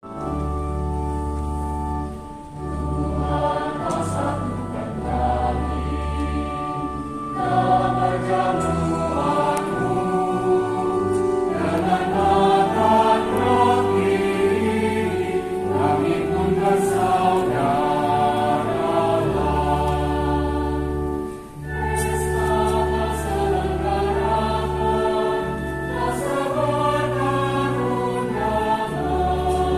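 Youth choir singing in several voices at once, over sustained low bass notes. The sound drops briefly about two-thirds of the way through, then the singing resumes.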